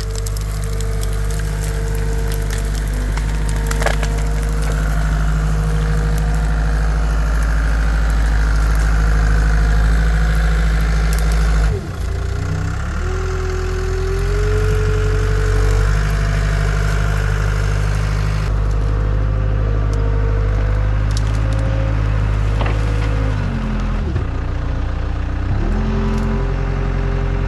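CAT 252B skid steer's diesel engine running steadily at high revs with a steady whine above it, the engine note dipping in pitch briefly about halfway through and again near the end, with a few sharp cracks.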